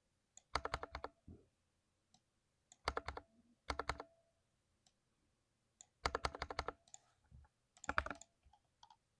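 Modded mechanical keyboard being typed on in quick bursts: five short runs of rapid keystrokes separated by pauses.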